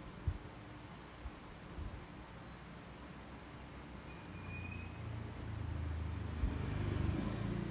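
Background noise with a short run of high chirps about a second in, then a low rumble that swells in the second half.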